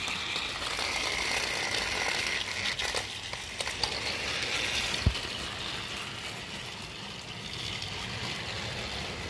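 Battery-powered toy train engines running on plastic track: a steady whirring of small motors and gears, with a few clicks along the way.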